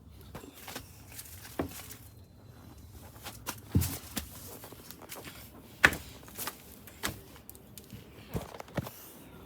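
Irregular footsteps and short knocks, with a dull thump a little before four seconds in and a sharp knock about six seconds in.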